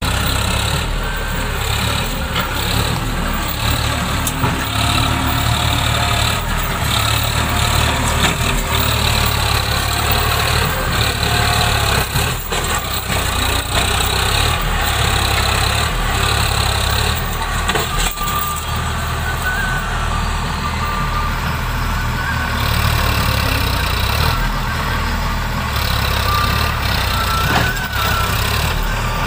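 Sonalika tractor's diesel engine running steadily under heavy load as it drags a soil-laden trailer through soft mud, the load heavy enough to lift its front wheels off the ground.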